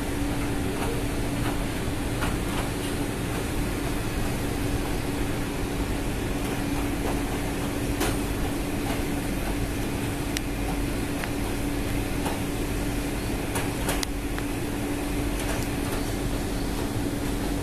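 Ship's machinery running steadily: a constant hum with one steady low tone and a few faint clicks.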